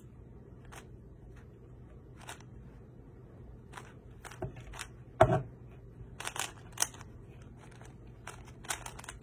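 Rubik's Cube being turned by hand during a timed solve: irregular plastic clicks and clacks of the layers, with one louder knock about five seconds in.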